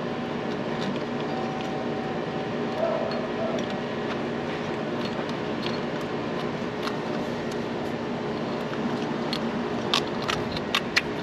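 Thin metal exhaust manifold gasket clicking and scraping against the exhaust studs on the cylinder head as it is worked into place, with a few sharp metallic clicks near the end. A steady hum with several constant tones runs underneath.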